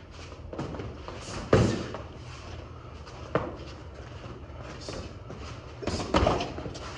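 Boxing sparring: gloved punches landing as thuds amid shuffling footwork. The loudest hit comes about a second and a half in, a lighter one past three seconds and a quick double near six seconds, over a steady low hum.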